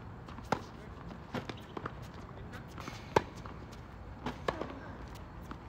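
Tennis rally on an outdoor hard court: sharp pops of racket strings striking the ball and the ball bouncing, mixed with sneakers stepping and scuffing on the court. The loudest pop comes about three seconds in.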